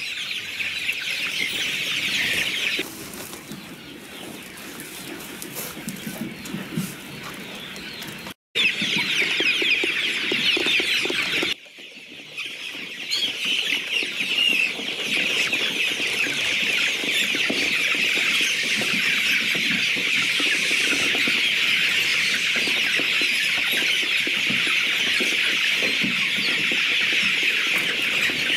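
A large flock of young chickens peeping and cheeping all at once in a dense, continuous chorus of high calls. It is softer for a few seconds early on, breaks off for an instant about eight seconds in, dips again around twelve seconds, then grows fuller and steady.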